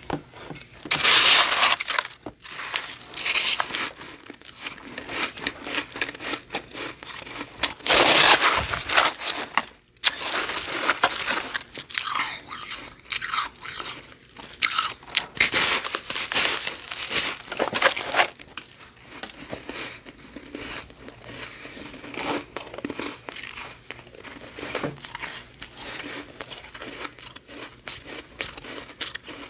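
Freezer frost being bitten and chewed close to the microphone: crisp, crackling crunches, with the loudest bites about a second in and again about eight seconds in, then a run of steady chewing.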